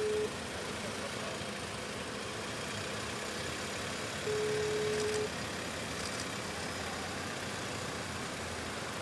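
Slow motorcade of motorcycles and vehicles passing as a steady wash of traffic noise. A one-second beep at a single steady pitch cuts through it about four seconds in, one of a series repeating every five seconds.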